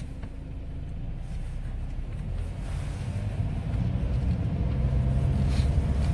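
Low, steady rumbling noise that slowly grows louder.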